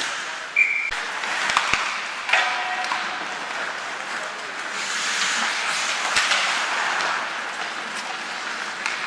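Ice hockey rink sound during play: spectators' voices and shouts over a steady crowd hubbub, with a few sharp clacks, a cluster about a second in and another near six seconds, as of sticks and puck.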